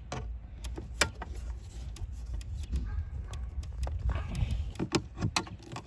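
Scattered clicks and light knocks of hand tools and plastic dashboard trim being handled and pried at, over a low steady rumble.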